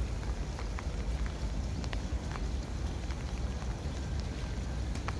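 Rain falling, with scattered short drip taps, over a steady low rumble.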